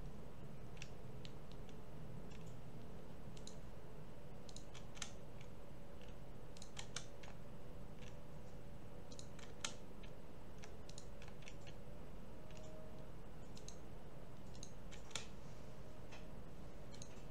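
Irregular clicking of a computer mouse and keyboard: scattered single clicks and quick clusters over a steady low hum.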